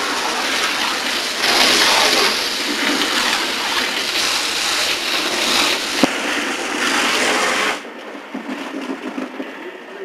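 Fire hose nozzle spraying water in a loud, steady hiss that is shut off abruptly about eight seconds in, with a single knock about six seconds in.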